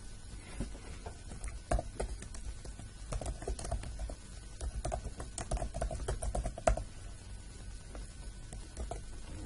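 Typing on a computer keyboard: irregular keystrokes in quick runs, a few pressed harder than the rest, stopping about seven seconds in.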